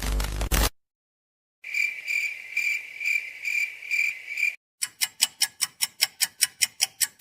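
A run of separate sound effects: a loud noisy effect cuts off, then a high cricket-like chirp pulses about twice a second for some three seconds, then a fast series of sharp clicks, about six a second, goes to the end.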